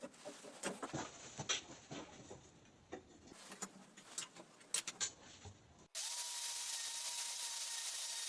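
Scattered light clicks and knocks of handling, then about six seconds in an angle grinder's motor cuts in abruptly and runs at a steady high whine with a hiss.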